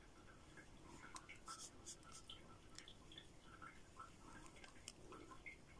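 Faint small handling sounds: a metal nail spatula scooping thick gel from a jar and scraping against it and the plastic film, with scattered soft clicks and scratches.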